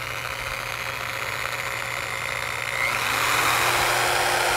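Electric drill running and boring into a metal pipe, a steady motor sound that gets louder about three seconds in as the bit cuts into the metal.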